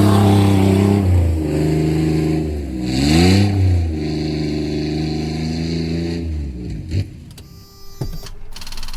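Vehicle engine running and revving, its pitch rising and falling twice. It winds down and dies about six and a half seconds in, followed by a couple of clicks.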